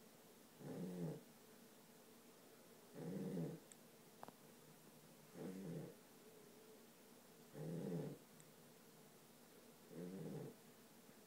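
Sleeping puppy snoring in an even rhythm: five short snores, each about half a second long and a little over two seconds apart.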